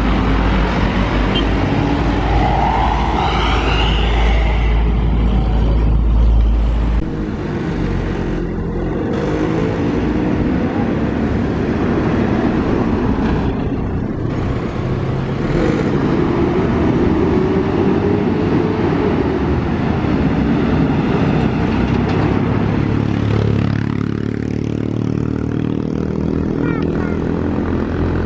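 Main-road traffic passing close: the engines and tyres of heavy vehicles, loudest over the first seven seconds, with more vehicles going by after that, one sweeping past about three-quarters of the way through.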